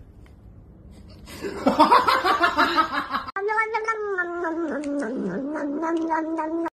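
A cat yowling: a loud ragged yowl, then, after a sudden break, one long drawn-out wavering cry that dips in pitch and then holds steady.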